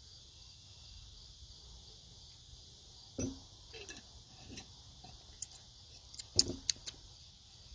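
Crickets chirring steadily, with scattered clinks and knocks of things being handled, the loudest group about six and a half seconds in.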